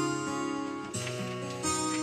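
Yamaha electronic keyboard playing the instrumental introduction to a French gospel hymn: sustained chords that change every second or so.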